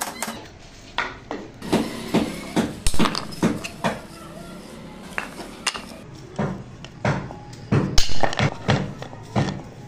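Sharp metallic clicks and clinks of hand tools at work on a coir-bristle wooden brush. They come in two irregular runs of about three a second, with a pause of about two seconds between them.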